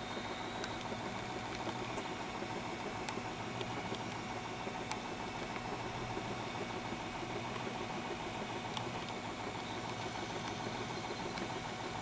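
A lighted beer-advertising motion sign running: a steady hum and whir from its motor and lamp, with a few faint ticks.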